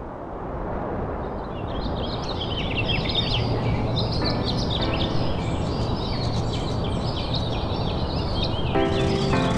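Outdoor ambience fading in: a steady rushing background with many small birds chirping and twittering from about a second and a half in. Music with held notes comes in near the end.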